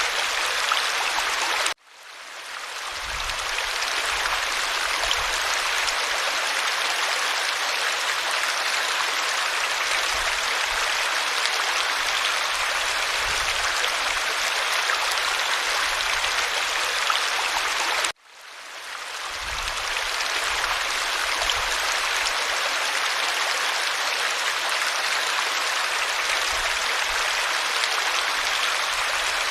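Creek water running over rocks in a steady, even rush. It cuts out abruptly twice, about 16 seconds apart, and fades back in over a couple of seconds each time, at the seams of a looped recording.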